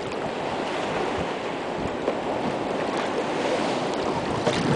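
Ocean surf washing against a rock breakwater, a steady rush of water.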